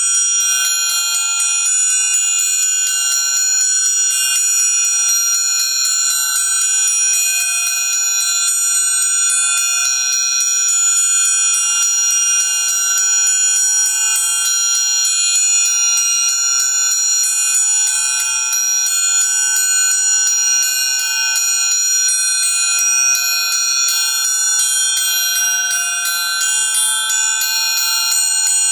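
Amplified orchestral triangle played in a fast, even tremolo, giving a dense shimmer of steady high ringing overtones with no low end. Some of the lower overtones fade out and come back partway through as the player's damping fingers shift.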